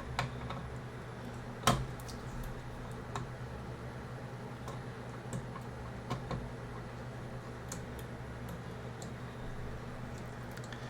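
Small scattered clicks and taps of parts being handled on a Minisforum MS-01 mini PC while its fan is taken off to reach the memory slots, with one sharper click about two seconds in. A steady low hum runs underneath.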